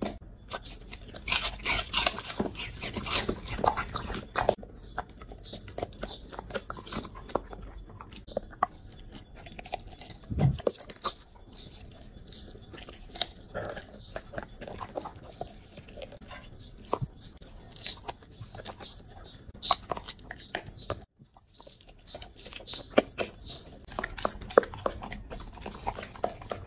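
A dog chewing and crunching roasted poultry with bone, with a run of sharp, wet bites and crunches, busiest in the first few seconds.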